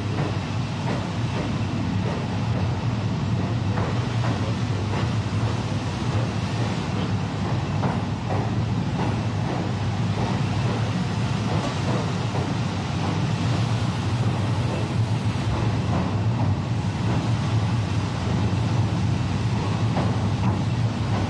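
Train running through a tunnel, heard from the driver's cab: a steady low rumble with faint, irregular clicks.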